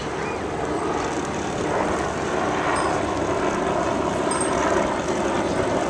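Steady rushing noise of a recumbent bicycle in motion: wind buffeting the microphone over the rumble of tyres rolling on pavement, a little louder about two seconds in.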